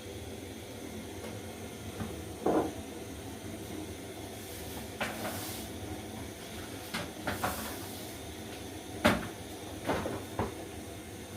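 Scattered knocks and clatters of cookware and kitchen items being handled, about eight of them, the loudest about nine seconds in, over a steady low hiss.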